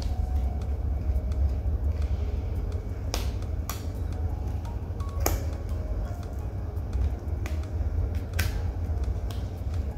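Background music, with a few sharp clicks and ticks from fingers and a tool working loose the cover seal over a laptop's RAM slots.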